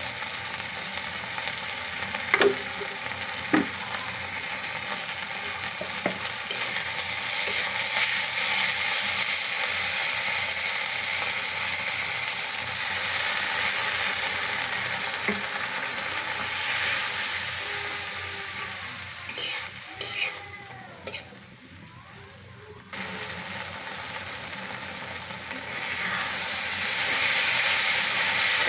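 Food sizzling as it fries in hot oil in a pan while it is stirred, with a few sharp knocks of the spoon or spatula against the pan near the start. The sizzle drops away briefly about three-quarters of the way through, then comes back.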